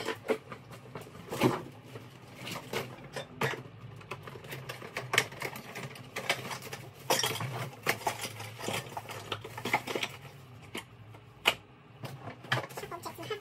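Irregular knocks, clicks and rustles of packing: a suitcase set down and opened, and a cardboard product box handled over it, over a low steady hum.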